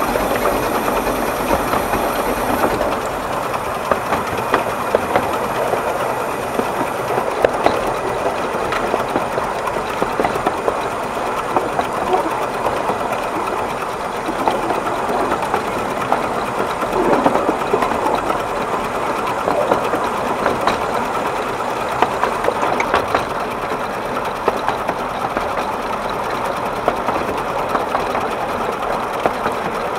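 A 12¼-inch gauge steam locomotive built by the Exmoor Steam Railway, running along the track as heard from its footplate: a steady mechanical clatter of exhaust, motion and wheels, full of small rapid clicks.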